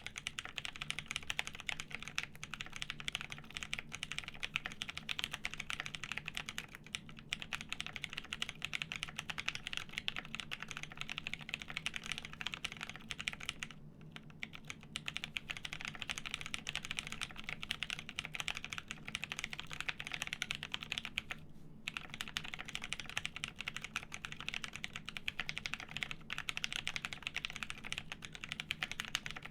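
Continuous typing on a plateless JER1800 mechanical keyboard with lubed Pewter switches and G81-1800 keycaps: a dense, even stream of keystrokes, broken by three brief pauses.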